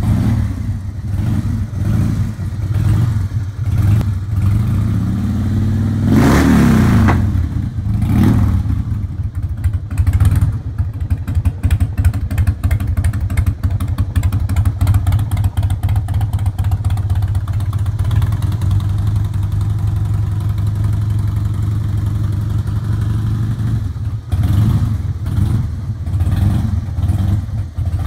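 2006 Harley-Davidson Heritage Softail's Twin Cam 88B V-twin engine running, blipped with a string of short throttle revs in the first several seconds, a bigger rev about six seconds in, then idling steadily before more blips near the end.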